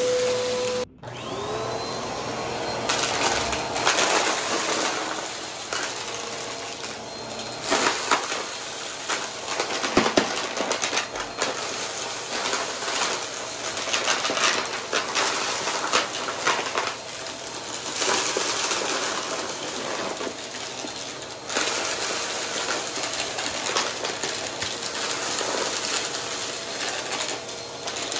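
Vacuum cleaner running and sucking up dry, crunchy debris from a rug, with frequent crackles and rattles as pieces are pulled in. About a second in the sound cuts out briefly, then a vacuum motor spins up again.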